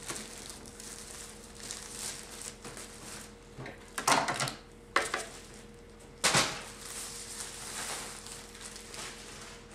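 Plastic wrapping crinkling as it is pulled off a cardboard box, with three sharp clatters a little past the middle of hard objects knocking on a glass-topped table.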